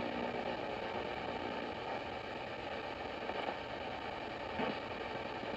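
Sony ICF-2010 shortwave receiver's speaker giving steady static and hiss on AM while being tuned between stations around 6 MHz, with a brief blip of signal about four and a half seconds in.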